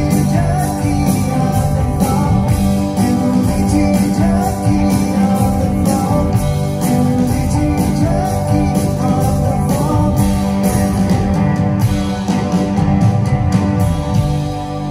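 Live rock band playing: electric guitars, drums and keyboards, with a male lead vocal.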